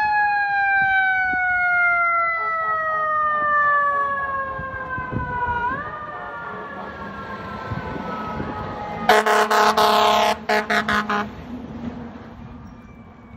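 Fire truck's Federal Q2B mechanical siren winding down in a long falling wail, spun up briefly about six seconds in, then falling further. Then the air horn sounds loudly, one long blast followed by several short ones, ending a few seconds before the end.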